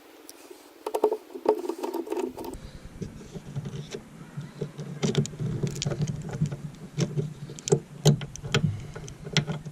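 Irregular clicks, taps and light knocks of hands handling and fitting parts, over a steady background hum.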